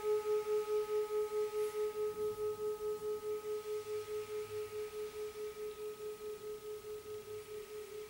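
Struck Tibetan singing bowl ringing on in a single steady tone with a fast pulsing wobble, about five beats a second, fading slowly.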